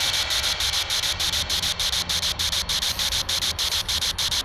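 Spirit box radio-sweep static: a steady hiss chopped on and off about three times a second as the device scans through radio channels, the noise ghost hunters listen to for voices.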